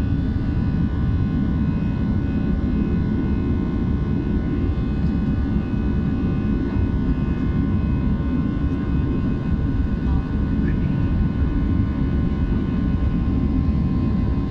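Jet engines of an Airbus A320-family airliner at climb power just after takeoff, heard from inside the cabin over the wing. A steady, loud rumble runs throughout, with several thin, steady whining tones above it.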